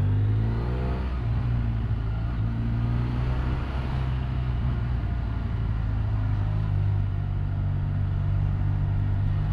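BMW F800ST's parallel-twin engine running at low road speed, its pitch rising as it revs up in the first second, then running steadily.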